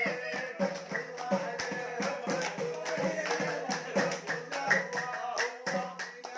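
Music with singing over a steady beat of hand claps and percussion.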